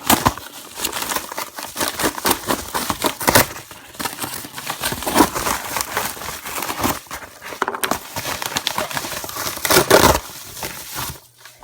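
Mail packaging being opened by hand: a long stretch of irregular crinkling and crackling, with tearing, that dies down near the end.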